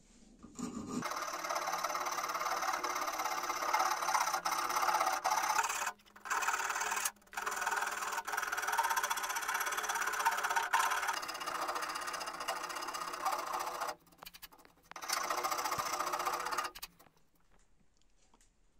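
A hand file rasping across a knife's black walnut handle clamped in a vise, with short breaks about six and seven seconds in and a longer one about fourteen seconds in. It stops near the end.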